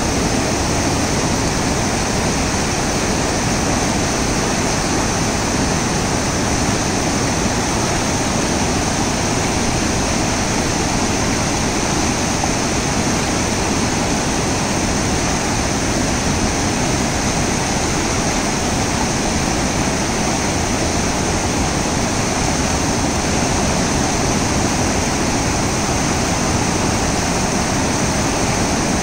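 Loud, steady rushing of the Godavari river's water, running high with rain, unbroken throughout.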